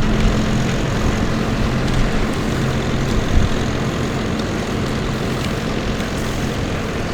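Tractor engine running with a steady low hum over a rumbling noise. The hum fades after about three and a half seconds while the rumble goes on.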